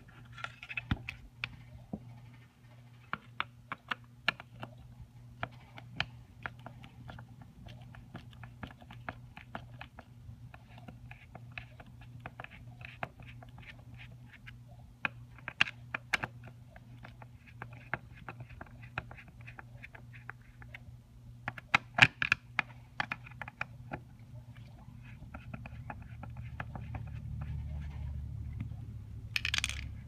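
Scattered clicks, taps and short scrapes of a screwdriver and fingers working the screws and steel plate of a plastic handle-and-lock assembly. A low rumble builds near the end.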